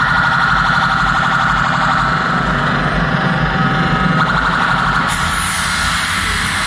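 Loud electronic dance music over a festival sound system, heard from the crowd: a held, siren-like synth tone over a pulsing bass. A hiss comes in about five seconds in.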